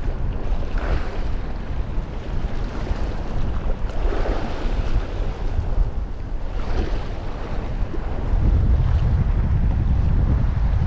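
Wind buffeting the microphone, a steady low rumble that grows stronger near the end, with waves washing against the breakwater in swells of hiss about a second, four seconds and seven seconds in.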